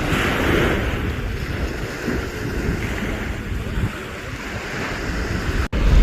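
Ocean waves breaking and washing up the shore in swells, with wind buffeting the microphone as a low rumble. The sound drops out for an instant near the end.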